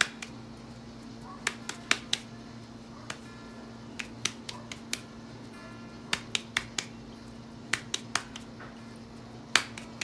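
Scattered sharp pops and crackles of dough and fat cooking on a hot griddle or pan, coming irregularly a couple of times a second, over a steady low hum.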